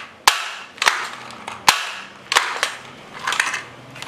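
Toy gun firing: three sharp snapping shots in the first two seconds, followed by lighter clicks and a rattle of the plastic mechanism near the end.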